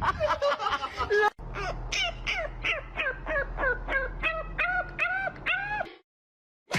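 An animal giving a rapid series of short, repeated calls, about four a second, each rising in pitch and then levelling off. The calls break off abruptly about a second and a half in, start again, and stop shortly before a brief sharp sound near the end.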